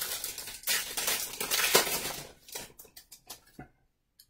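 The wrapper of a pack of baseball cards being torn open and crinkled: a dense crackling for about three seconds, then a few separate light clicks before it goes still.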